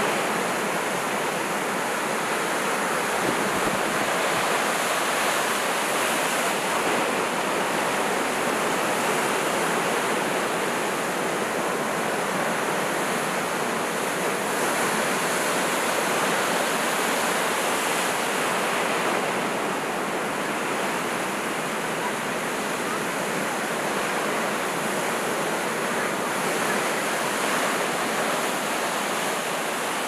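Heavy sea swell breaking over shoreline rocks: a continuous, steady rush of surf with no separate crashes standing out.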